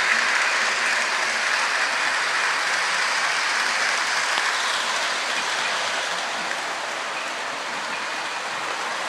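Model train rolling along the track close by: a steady rushing noise of its wheels on the rails, easing slightly in the second half.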